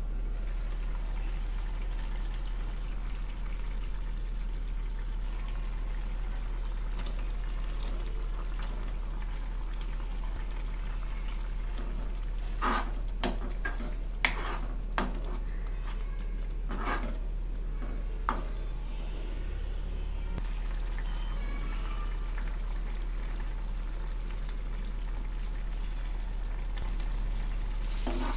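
Steady hiss of thick curry simmering in a kadai, over a constant low electrical hum. Roughly halfway through, a metal spoon clinks against the pan several times.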